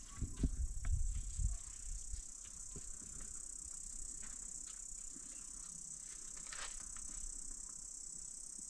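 Steady high-pitched chorus of insects such as crickets, with scattered light clicks and a low rumble in the first second or so.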